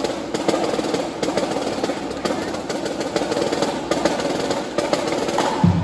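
Rapid, irregular percussive clicks over a crowd hum. Near the end, a marching band's low brass comes in with a held chord.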